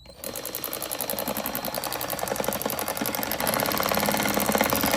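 Power driver running a small Phillips-head screw into a mudflap fastening tab, with a fast, even rattle. It starts about a quarter second in and grows louder as it goes.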